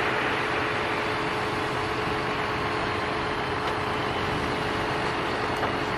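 Concrete mixer truck's engine running steadily, with a constant hum.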